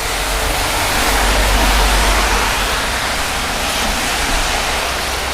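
Steady rushing of rain, with a deep rumble underneath that swells in the first few seconds and then eases.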